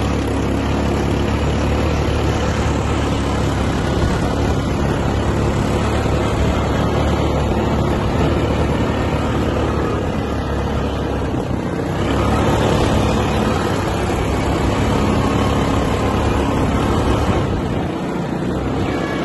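Wind buffeting a phone's microphone outdoors: a loud, steady rumble and rush, heaviest at the low end.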